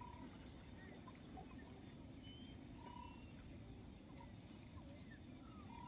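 Near silence: a faint low rumble of outdoor ambience with faint short animal calls, one about every three seconds, and a few small chirps between them.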